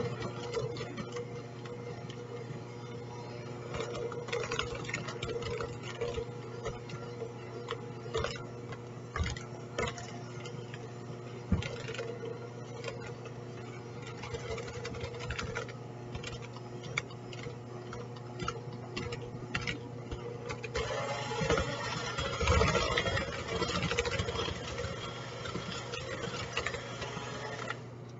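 Electric hand mixer running steadily, its beaters working flour into stiff cookie dough, with scattered clicks and knocks as the beaters hit the plastic bowl. The sound grows louder and busier for a few seconds past the middle.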